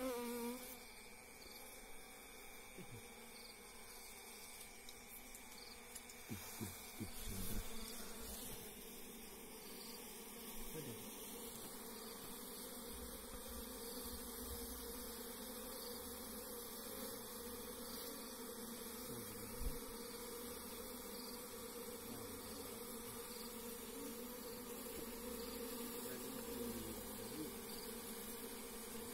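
A colony of honeybees buzzing steadily around a bare hand at their wooden hive box, a low even hum. A few soft bumps come about six to eight seconds in, and a single tap near twenty seconds.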